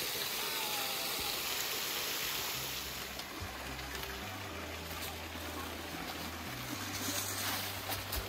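Creek water rushing steadily, a constant even wash of noise. A faint low hum comes in about two and a half seconds in.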